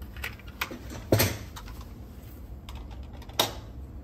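Light plastic clicks and taps of a cassette being lifted out of a cassette deck's tape transport, with two sharper knocks, one about a second in and one near the end.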